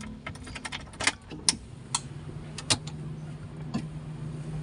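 Car keys jangling and the ignition switch of a 1991 Kia Pride clicking as the key is turned to on: a string of sharp clicks, loudest about a second in. A low steady hum comes on about two seconds in.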